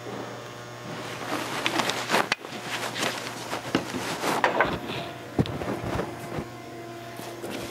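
DOT 3 brake fluid poured from a plastic bottle into a clutch master cylinder's plastic reservoir, with an irregular trickling and gurgling for a few seconds. A few soft knocks come near the end, over a steady electrical hum.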